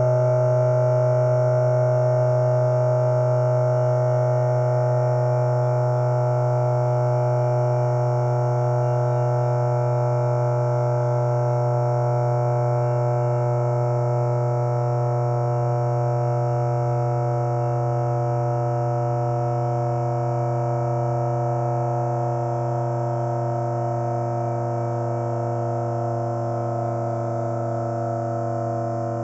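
The 'bruh' meme voice clip, digitally time-stretched into a long unbroken drone: a low held tone with many overtones that slowly gets quieter.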